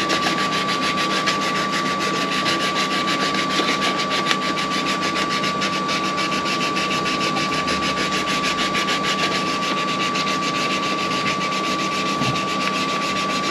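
A steady machine-like hum and hiss with a constant thin high whistle, unchanging throughout.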